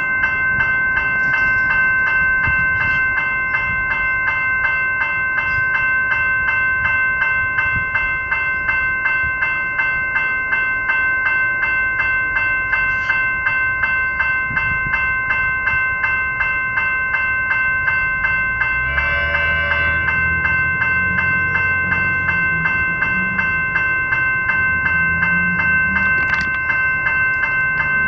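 Level-crossing General Signals electronic bells ringing in a steady, rapid beat, warning of an approaching train. About two-thirds of the way through, an electric suburban train sounds a short horn blast, and its low rumble grows as it nears the crossing.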